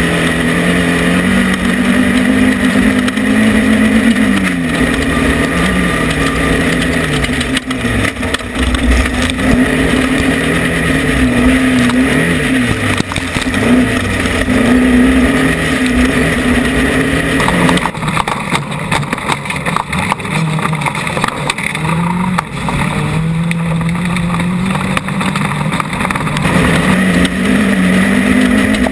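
Off-road race vehicle's engine running hard throughout, its pitch repeatedly climbing and dropping as it accelerates and lifts off.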